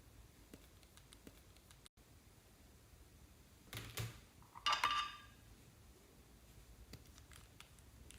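Clear slime being handled: a few light clicks, then two short, louder squelching crackles about four and five seconds in.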